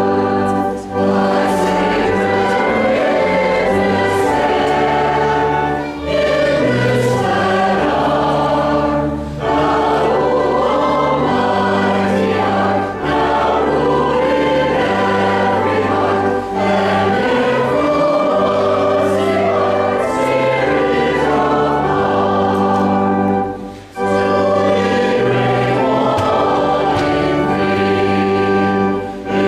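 A church choir singing a hymn in parts over held low accompanying notes, with brief dips between phrases.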